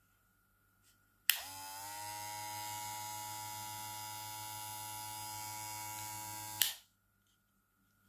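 Kemei KM-2296 hair clipper's 7500 rpm motor switched on with a click, rising quickly to speed and then running at a steady buzzing whine for about five seconds before being switched off with a click and running down.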